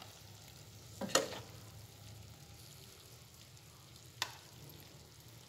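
Cooked stir-fry being served from the pan onto a plate: a short utensil scrape about a second in and a sharp clink a little after four seconds, over a faint steady hiss.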